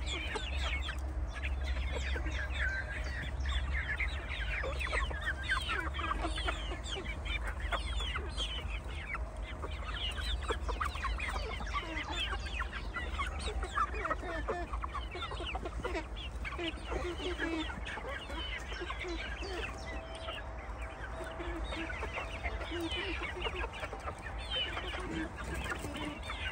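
A flock of young Shamo chickens calling: many short, overlapping chirps and clucks, with a steady low rumble underneath.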